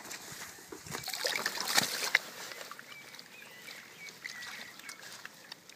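Water splashing and sloshing as a mesh weigh sling full of small fish is lowered into the lake edge to release them. The splashing is loudest between about one and two seconds in, with a couple of sharp splashes, then dies down to faint sloshing.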